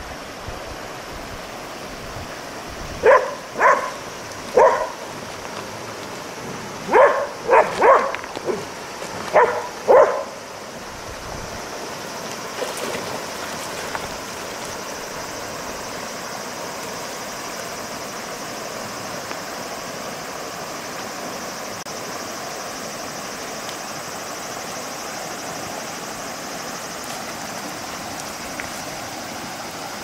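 Shallow river running over a stony bed, a steady rushing. Between about three and ten seconds in, a run of about eight short, loud calls cuts through it.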